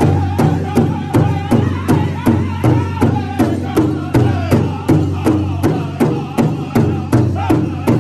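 Powwow drum group: several men striking one large shared drum together in a steady beat of about two strokes a second while singing high-pitched above it.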